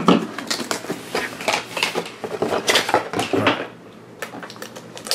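Small cardboard blind box being opened by hand: tape peeled off and the cardboard box and its inner cardboard crate rustling and knocking, in a quick run of crackles and taps that thins out after about three and a half seconds.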